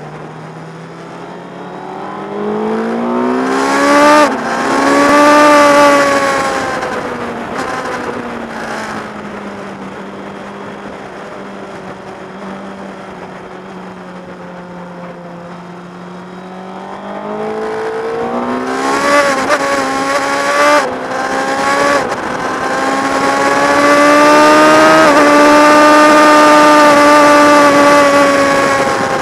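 Motorcycle engine revving hard through the gears, with sharp drops in pitch at each upshift. It eases back to a lower, steadier note through a long corner, then accelerates hard again with three or four quick upshifts and is held high near the end. Wind rushes over the bike-mounted microphone throughout.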